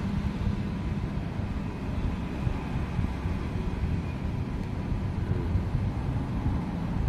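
Steady low background rumble with a faint hum, unchanging throughout.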